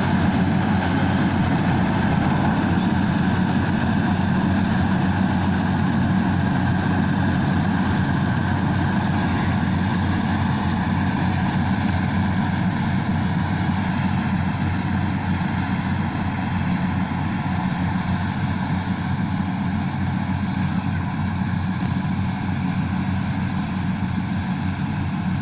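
Rice combine harvester running steadily, a continuous engine drone with a mechanical hum from the machine.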